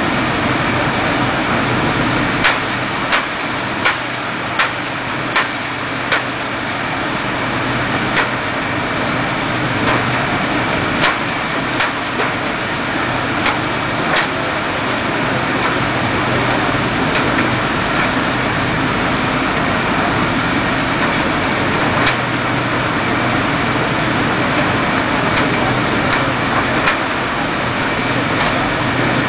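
Fire engine running steadily with a low hum, its pump working at a rectory roof fire. Sharp knocks cut through it: a quick run about every 0.7 seconds early on, then single knocks now and then.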